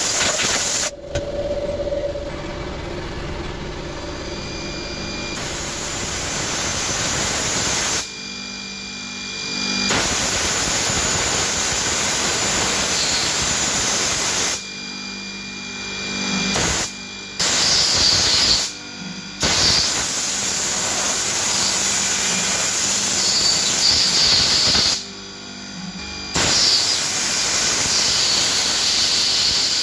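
CNC machining center cutting and drilling an aluminium plate under flood coolant: a loud, steady hiss of coolant spray and cutting, with a high whine at times in the second half. A few times the hiss drops away for a second or two, leaving a quieter machine hum with a few steady tones.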